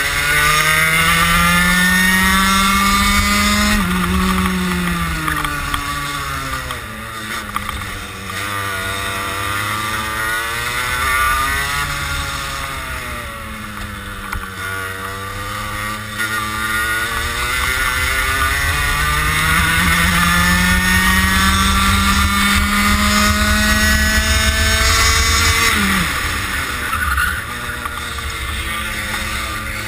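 Racing kart engine, close up from on board, revving up along the straights and dropping back as it slows for corners. Its pitch climbs for the first few seconds, falls away, dips lowest around the middle, then makes a long climb before a sharp drop near the end.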